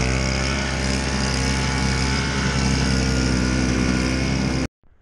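Toro single-stage snowblower's small engine running steadily at a constant speed, then cutting off abruptly near the end.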